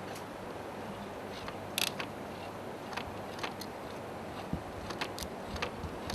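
Scattered small clicks and light plastic handling noises from a video CD player's pickup mechanism being handled, over a steady low hum.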